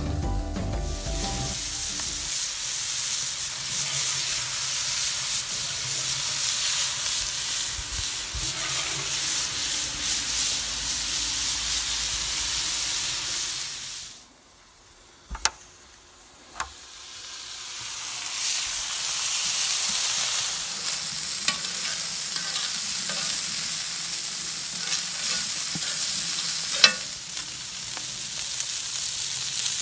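Meatballs sizzling steadily as they fry on a flat griddle plate over a charcoal fire. About halfway through the sizzle drops away for a few seconds, broken by a couple of sharp clicks, then comes back.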